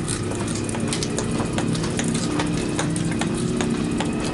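Bicycle freewheels ticking steadily as road bikes are wheeled along on foot, with scattered sharp clicks throughout.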